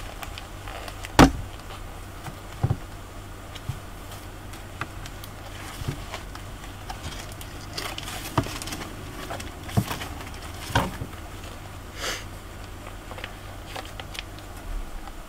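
Scattered clicks and knocks from things being handled at a desk, picked up by a headset microphone over a low steady electrical hum. The loudest knock comes about a second in.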